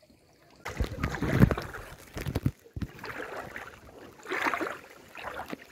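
Sea water splashing and sloshing in irregular surges as someone moves through it while wading or swimming.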